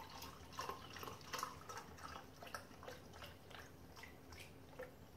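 Faint trickling and dripping of chicken broth poured from a carton into an empty tin can, in short irregular spurts.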